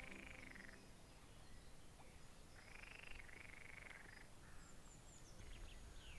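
Faint frog calls: a short call at the start, then a longer run of two or three calls in the middle and a brief one after it, each a rapid pulsing at a fairly high pitch, over a quiet outdoor background.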